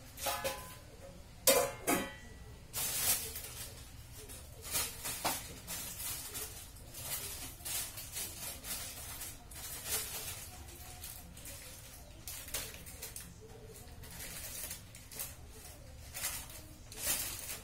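Irregular clatter of kitchenware being handled: scattered clicks and knocks, with two ringing clinks about a second and a half and two seconds in.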